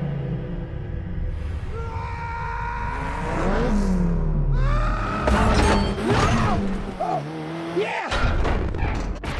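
Action-film sound mix: dramatic music with a rally car's engine revving, glass and debris shattering as the car bursts out through a factory window, and heavy crashing impacts in the second half.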